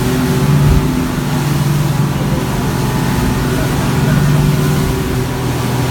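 A boat's engine running steadily with a low drone, under a constant rush of wind and water.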